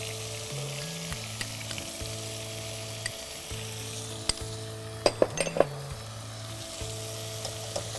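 Minced chicken sizzling as it fries in a pot, stirred with a wooden spoon, with a few sharp utensil clicks about five seconds in. Soft background music holds low notes underneath.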